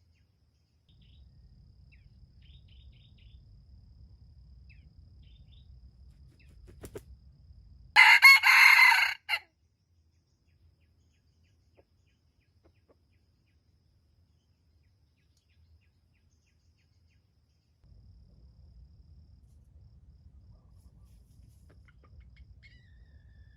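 A wild junglefowl rooster crowing once, a short harsh crow of about a second and a half, loud against a faint low rumble.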